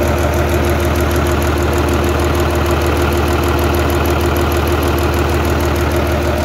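Gardner 6HLW horizontal six-cylinder diesel engine running steadily, with an even, rhythmic puffing from the brake exhauster, which is open at the top.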